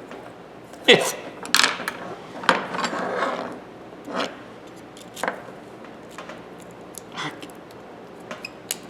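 Scattered metal clicks and scrapes of hand tools prying at the dust cover of a Thorsen 77J ratchet, in short irregular bursts.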